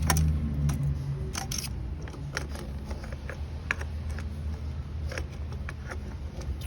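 Scattered light clicks and taps, about a dozen at uneven spacing, over a low steady hum: handling noise from moving around the engine bay.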